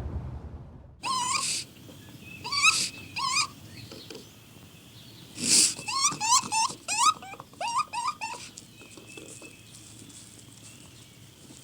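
An animal, dog-like, giving a series of short, high yelping calls that hook upward in pitch. A few come about a second in, then a quicker run of them starts with a louder burst a little past the middle.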